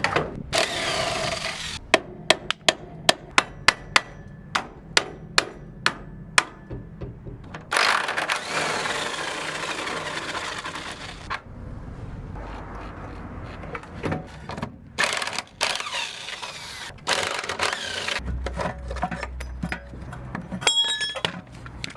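Tools at work on the front suspension of a Mk1 Volkswagen Golf during teardown. A run of about a dozen sharp knocks comes at roughly three a second, then a power tool runs for several seconds and again in shorter bursts.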